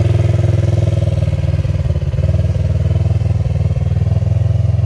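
Polaris RZR side-by-side's twin-cylinder engine running steadily at raised revs, a loud low drone with only small changes in pitch.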